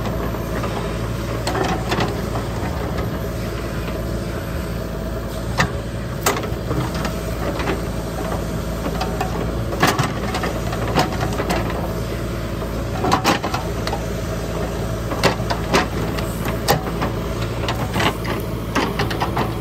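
JCB 3DX backhoe loader's diesel engine running steadily under hydraulic load while the backhoe bucket digs into soil and dry grass, with scattered sharp knocks and scrapes as the bucket strikes the ground and stones.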